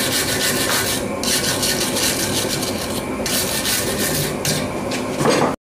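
Hand wire brush scrubbing back and forth over a freshly forged twisted steel bar held in a vise, cleaning it up: a steady harsh scratching in long stretches with brief pauses, ending in a sudden cut near the end.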